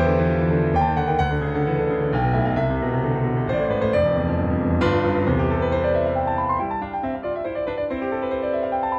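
Background piano music, a gentle melody with rising runs of notes about six seconds in and again near the end.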